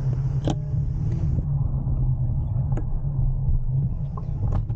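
Steady low rumble of wind buffeting the microphone and tyre noise while riding a Jetson Bolt Pro e-bike, with a few sharp clicks.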